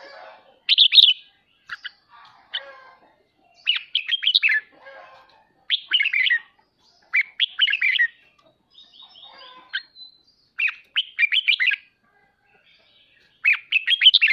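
Red-whiskered bulbul giving its chattering 'ché' calls: short bursts of rapid, sharp notes, repeated every second or two.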